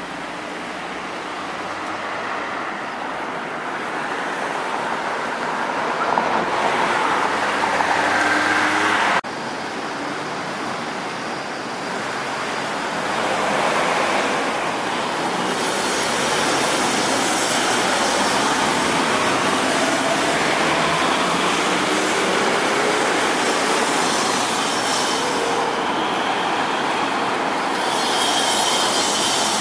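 City street traffic noise: cars and minibuses passing, a steady rushing ambience with passing engine and tyre sounds.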